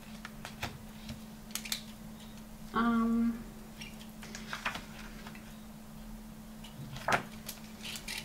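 Paper handling at a desk: a bundle of shop receipts rustling in the hand and a page of a spiral-bound planner being lifted and turned, with scattered small taps and clicks and one sharper click about seven seconds in. A short hummed "hmm" comes about three seconds in, over a steady low hum.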